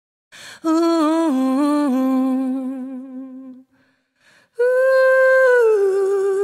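Wordless hummed vocal in two long phrases, each stepping down in pitch, the second starting higher and gliding lower near its end, with a short hiss before each phrase.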